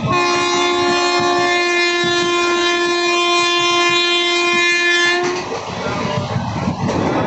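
Train horn sounding one long steady blast of about five seconds that cuts off suddenly, followed by the running noise of the moving train.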